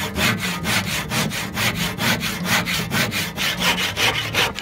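Handsaw with a rusty steel blade cutting through a weathered timber board, in quick, even back-and-forth strokes at about five a second.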